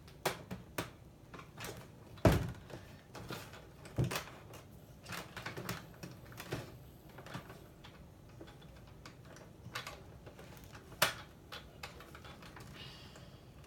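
Handling of a plastic Nerf Rival toy blaster: scattered light plastic clicks and rattles, with a few sharper knocks about two, four and eleven seconds in.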